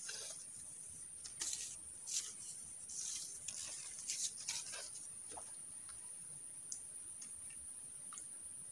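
Crickets trilling in a steady, high, even tone, with a handful of brief scratchy, rustling noises during the first five seconds.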